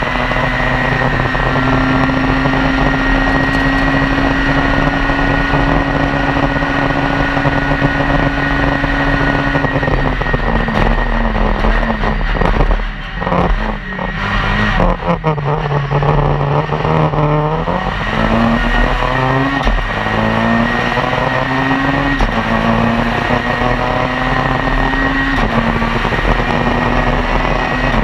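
Citroën C2 R2 Max rally car's 1.6-litre four-cylinder engine heard from inside the cabin, held at high revs at first. About halfway through it drops off as the car slows, then pulls hard again, climbing through the gears with several quick upshifts.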